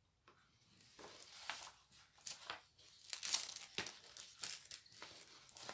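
Clear plastic sleeves and card being handled, crinkling and rustling in a run of irregular crackles.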